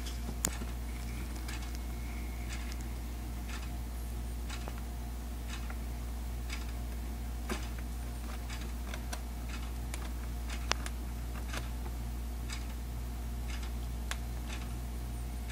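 A pet crab picking at a piece of banana, its claws making small, irregular clicks and taps, a few of them sharper, over a steady low hum.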